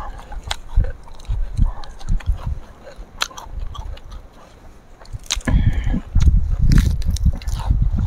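Close-up eating sounds: crunching bites into raw vegetables and leaves, with chewing, sharp clicks and low thuds scattered throughout, heavier in the second half.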